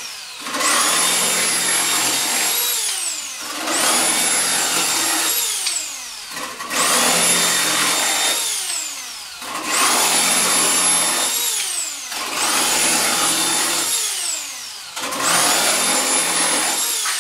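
Angle grinder cutting metal profile in six short bursts, about one every three seconds: each time it spins up to a high steady whine with a rough cutting noise, then winds down with a falling whine when released.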